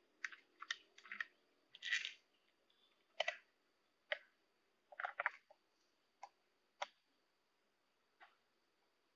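Quiet, irregular clicks and taps of a plastic fan-switch housing being handled and pressed into place over a wall-mounted switch plate, with a short scrape about two seconds in.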